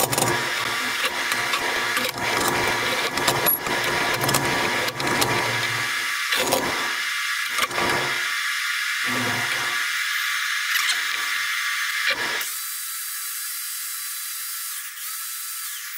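Steel angle iron and bar clamps knocking and clanking against an aluminium diamond-plate panel and a steel table as they are set and screwed tight, over a steady hiss. The knocks stop about twelve seconds in, leaving only the hiss.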